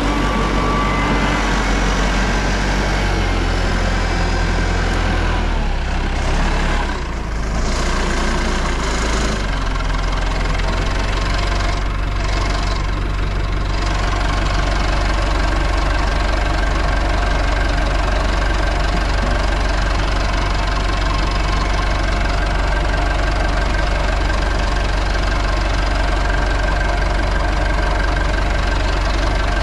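Backhoe's diesel engine running steadily close by, with a brief dip and change in its note about 7 seconds in.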